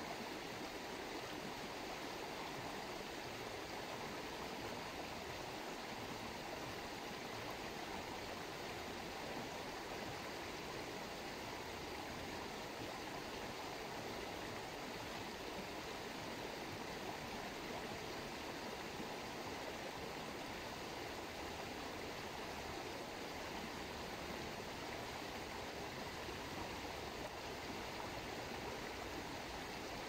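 Running water, a steady, even rush with no breaks.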